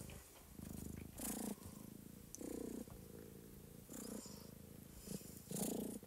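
Domestic cat purring close to the microphone, in soft pulses with its breaths, roughly one a second.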